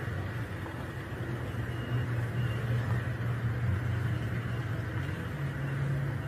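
Engines of a column of military pickup trucks driving past, a steady low drone whose pitch steps up slightly about five and a half seconds in.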